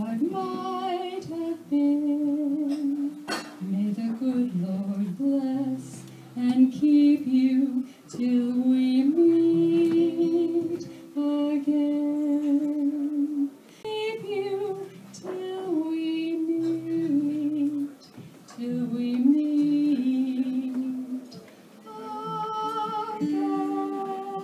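A woman singing a slow song in phrases of a few seconds each, her voice with a light vibrato, over a soft guitar accompaniment.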